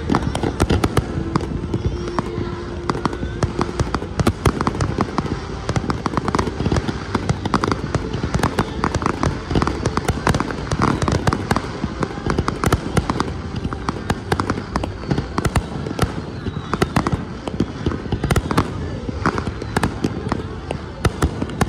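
Fireworks display with shells and low-level effects going off in rapid succession: a near-continuous string of bangs and crackles with no break.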